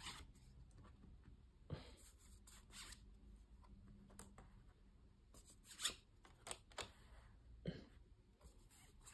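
Faint handling noise of stiff printed art cards being shuffled and laid down on carpet: a handful of brief rustles and scrapes.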